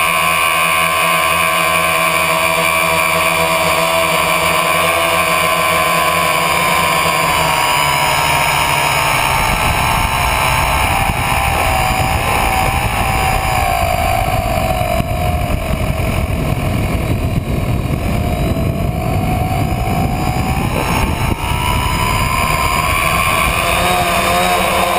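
Tricopter's electric motors and propellers whining, picked up by the onboard camera. The whine slowly drops in pitch as the craft descends, with a rumble of rushing air underneath, then rises again near the end as it levels out low over the ground.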